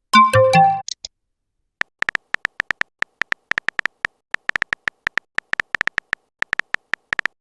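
Chat-app sound effects: a short electronic jingle of a few tones near the start, then a long run of quick, irregular keyboard-typing clicks as a message is typed out.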